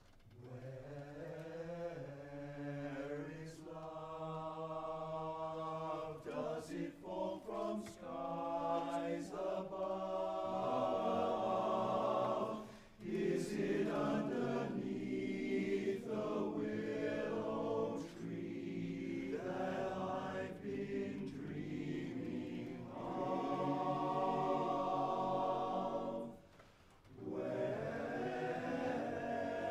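Male barbershop chorus singing a cappella in close four-part harmony, holding long sustained chords. The singing opens at the start and breaks off briefly twice, about 13 seconds in and again near the end.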